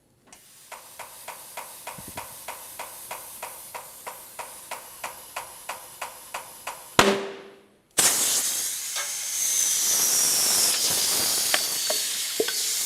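Compressed air inflating a tyre on a tyre changer's inflator. A hiss pulses about four times a second, then a sharp pop comes about seven seconds in. After a brief gap, a louder steady rush of air follows, with a faint falling whistle.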